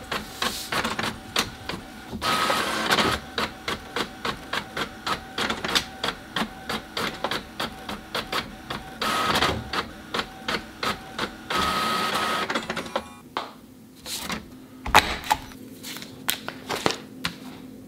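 Printer running off document pages: an even rhythm of clicks over a steady motor whine, with louder stretches as the pages feed through. It stops about 13 seconds in, and a few scattered knocks follow.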